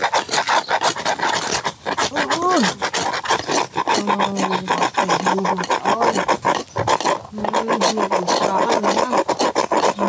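Rapid, continuous rasping scrape, many strokes a second, like a hand tool grating or scraping. From about four seconds in, a low voice hums a few short held notes over it.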